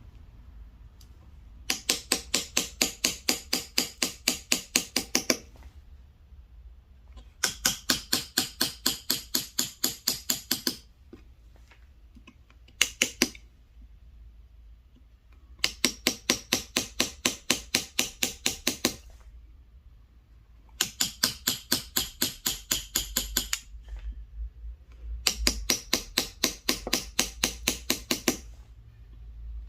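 Carving chisel struck with a mallet, cutting into ginkgo wood: fast, even taps at about five a second, in runs of about three seconds with short pauses between.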